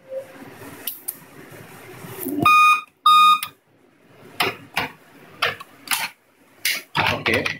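Laptop motherboard POST beep code: two short electronic beeps about half a second apart, the warning beeps that signal a RAM fault. Several sharp clicks follow in the second half as the open laptop case is handled.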